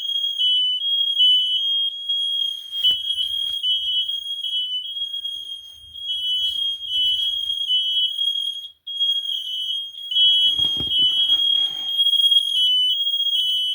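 Several Kidde i9010 and FireX i4618AC ionization smoke alarms sounding together, set off by humidifier steam rather than smoke. Their high beeps overlap into an almost unbroken tone at two slightly different pitches. A few knocks and rustles come about ten seconds in.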